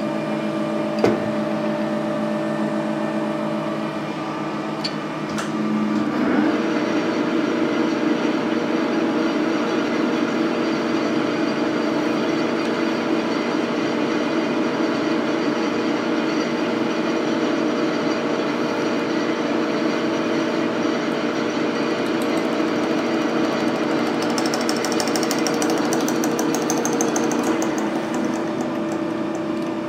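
A drill running with a steady hum. About six seconds in it turns into a louder, rougher cutting noise as the bit bores a hole into the stuck end of a Mag-Lite flashlight, easing back to the steady hum near the end.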